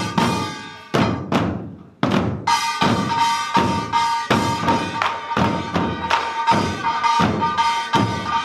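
Korean buk barrel drums struck by a dance troupe: a few spaced, heavy strokes, then from about two and a half seconds in a steady driving rhythm of roughly three strokes a second, joined by a continuously ringing metal gong.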